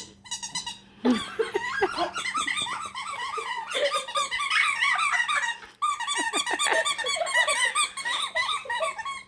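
A dog chewing a squeaky toy, setting off quick runs of high-pitched squeaks, many a second. There is a short break about six seconds in.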